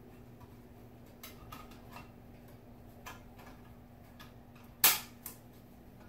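Plastic canary nest box panels handled and snapped together: a few light clicks and taps, then one sharp loud snap near the end followed by a smaller click.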